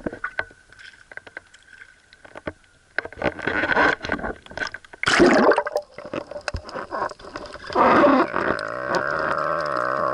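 Water gurgling and sloshing with scattered clicks, rising in three louder rushes. Background music with a low, droning, didgeridoo-like tone comes in about eight and a half seconds in.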